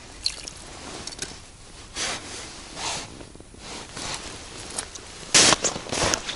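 A few soft rustles, then about five seconds in, boots crunching on snow in quick, loud steps.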